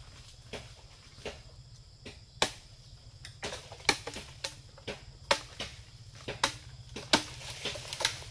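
Bamboo being chopped with a blade: a run of sharp, irregular strikes, sparse at first, then about two a second.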